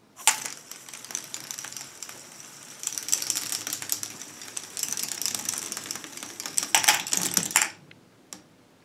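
A motor-driven K'NEX inverted helix ball lift running: plastic parts and balls rattle with rapid, continuous clicking much like typing. The rattling cuts off about three-quarters of a second before the end.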